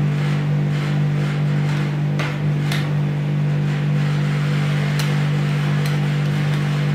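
A steel spatula scraping and spreading ice cream mix on the frozen steel pan of a rolled ice cream machine, with a few sharp clicks of metal on metal, over a steady low hum.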